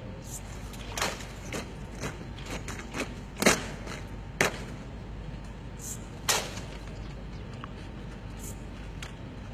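Soldiers performing a parade-ground drill: a series of sharp slaps and stamps, about eight at uneven spacing, the loudest about three and a half seconds in, over steady background noise.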